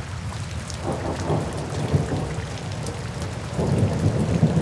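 Steady rain hiss with low rolling thunder, the rumble swelling about a second in and again near the end.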